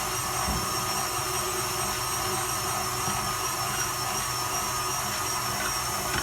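Electric meat grinder motor running steadily with a constant high whine while it grinds soaked chickpeas for falafel.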